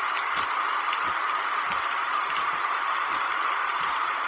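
Steady background hiss with a few faint, soft clicks.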